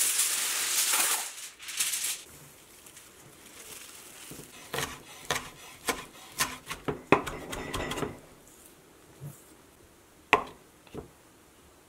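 A kitchen knife chopping garlic cloves and parsley on a wooden cutting board: a run of sharp, irregular knocks. It follows a loud crinkling rustle in the first second or so, likely foil or its box being handled. Near the end come two or three single knocks as the knife cuts into a block of butter on the board.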